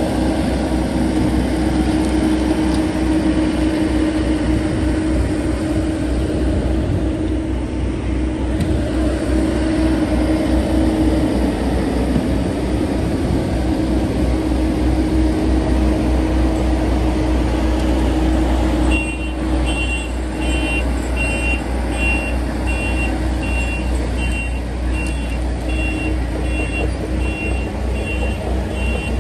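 Heavy diesel engines of an asphalt paver and a dump truck running steadily. About two-thirds of the way through the sound changes abruptly, and a backup alarm starts beeping a little more than once a second.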